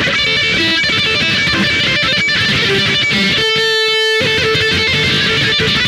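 Live electric guitar lead with the band playing behind it: quick runs of notes, then one long sustained note about three and a half seconds in.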